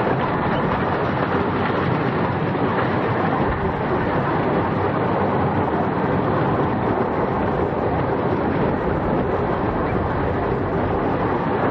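A 15-inch gauge miniature railway train running on the track, a steady noise with no break.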